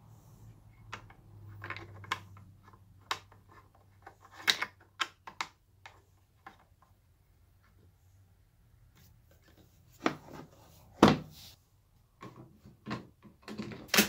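Scattered plastic clicks, taps and knocks as a DeWALT 20-volt cordless pole saw is handled, starting with its bar oil reservoir cap being closed; one louder knock near the end.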